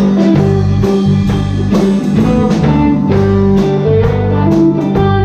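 Instrumental break of a blues song: a guitar plays a stepping melody over steady bass notes, with regular drum and cymbal ticks.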